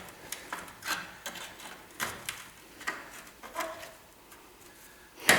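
Hand tools clicking and clinking against the steel suspension parts in short, irregular taps, one or two a second, fading out about four seconds in before a sharp click near the end.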